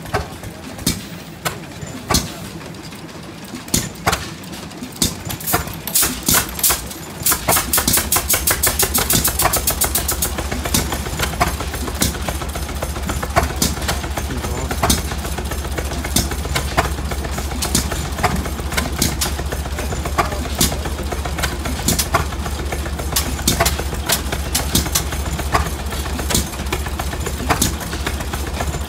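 Antique hit-and-miss stationary gas engines running, firing in irregular sharp exhaust pops with gaps as they coast. About seven seconds in, another engine starts and settles into rapid firing over a steady low drone.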